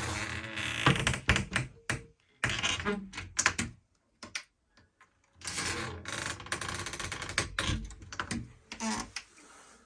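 A creaking door being swung open and shut a few times: the hinges creak and rasp in stretches of a second or two, and there are sharp knocks as the door meets its frame. The hinges have just been sprayed with an anti-rust, anti-squeak spray, and the creak has become smaller.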